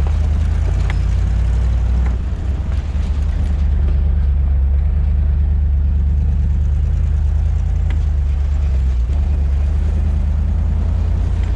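Jeep driving along: a steady low drone of engine and road noise, which dips briefly a couple of seconds in, with a few faint knocks.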